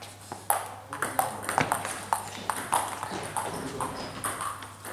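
Table tennis balls striking bats and tables in play, a quick, irregular string of sharp clicks.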